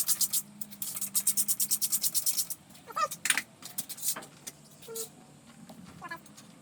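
Socket ratchet clicking rapidly, about ten clicks a second, for about two and a half seconds as a cylinder head bolt is backed out. A few separate metallic clinks of tools and bolts follow.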